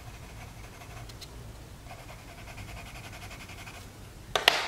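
A drawing pencil scratching faintly on paper as dark tones are laid into a charcoal mid-tone ground. A short, sharp knock near the end is the loudest sound.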